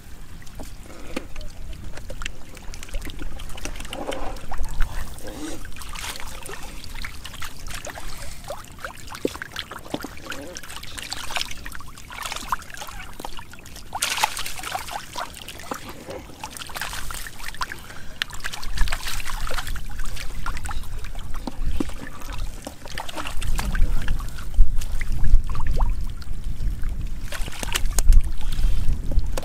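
Splashing and sloshing in shallow muddy water as fish are scooped up by hand and with a small mesh net, with fish thrashing in the puddle. The sounds come as many short, irregular splashes and get louder in the last third.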